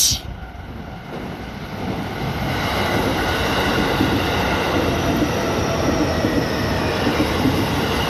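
JR East E531 series electric commuter train running past at close range. Its wheel and running noise builds over the first two or three seconds and then holds steady as the cars go by.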